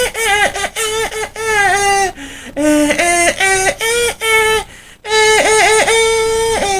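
A man singing a cappella in a high voice, a wordless melody of short sliding notes, then one long held note from about five seconds in.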